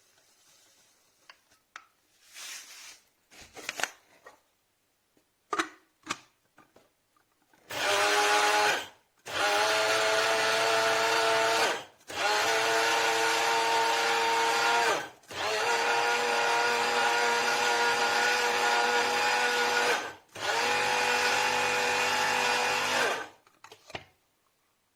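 Electric blade coffee grinder's 300 W motor run in five pulses, the first about a second long and the others three to five seconds, each a steady whine stopping briefly between pulses. A few handling clicks and knocks come before the first pulse.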